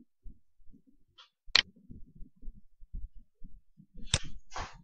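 Computer mouse clicks, sharp and single: one at the start, one about a second and a half in, and one about four seconds in, followed by a brief rustle. Faint low thumps run underneath.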